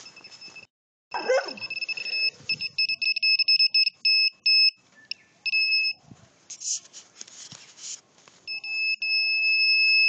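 Piezo buzzer on a microwave motion sensor sounding as the sensor detects movement: a high tone in on-off beeps of uneven length, then held as one long continuous tone near the end. A few rustling noises between the beeps.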